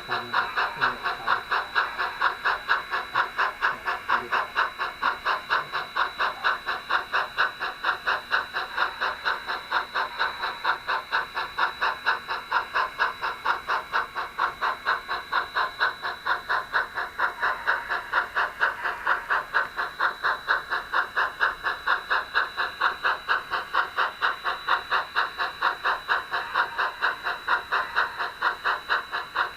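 Model train running along the layout track: an even rhythmic beat about three times a second, with a steady high whine over it.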